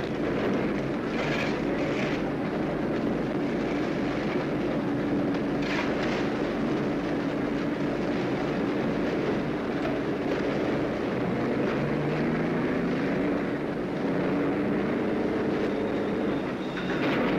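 Steady, loud machinery rumble with a constant rattle, a construction-site din; it cuts off near the end.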